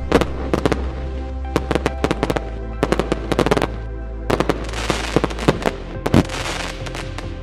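Electronic dance music with a held bass line and chords, mixed with firework bangs going off at uneven intervals, and a stretch of dense crackle about four to five and a half seconds in.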